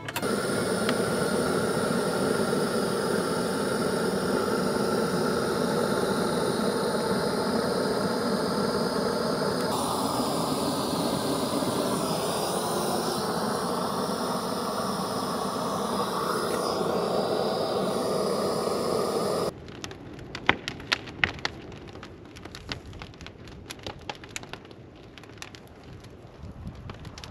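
Propane torch burning steadily as it is held to a pile of slabs and logs. About two-thirds of the way in it gives way to the wood fire crackling, with scattered sharp pops.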